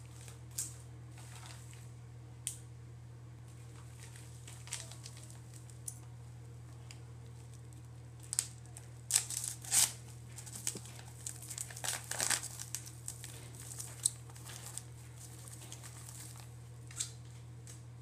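Paper shipping bag crinkling and rustling as it is handled and torn open, in short, irregular bursts that are busiest about halfway through.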